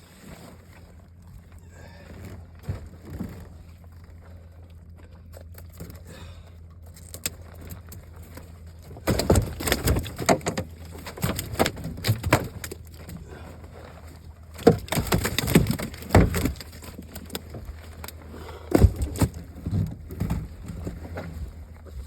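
Knocking and clattering in a small fishing boat during net fishing, in three spells of rapid thumps, over a steady low hum.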